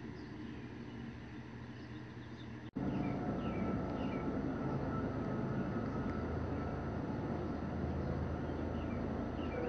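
Outdoor background sound: a steady low rumble with a few short, high chirps. It drops out for an instant a little under three seconds in and comes back louder.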